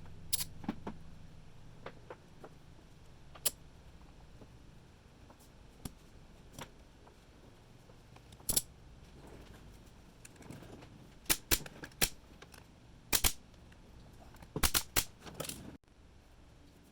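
Brad nailer driving 1-inch brad nails into wood: about a dozen sharp shots at irregular spacing, several coming in quick pairs and clusters in the second half.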